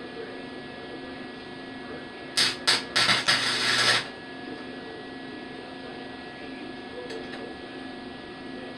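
Flux-core wire-feed welder tacking: two brief sputtering arc starts, then about a second of continuous arc crackle, over a steady hum. The stuttering start fits a poor ground connection, which the welder himself calls not quite good enough.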